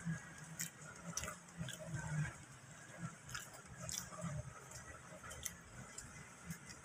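A person chewing and biting a soft bibingka (Filipino rice cake baked in banana leaf) close to the microphone: quiet, irregular mouth clicks and smacks.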